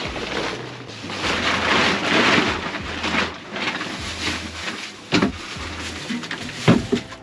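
Plastic tarp rustling and crinkling as it is handled and spread out, with a few knocks near the end.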